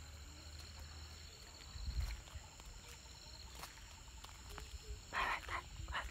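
Low wind and handling rumble on a phone microphone, then about five seconds in a baby monkey gives a few short, harsh calls.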